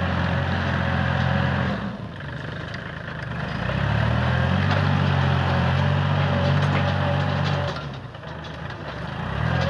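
Kubota tractor's diesel engine running under load while it pulls a disc plough through soil. The engine note falls back twice, about two seconds in and again near the end, and each time picks up again.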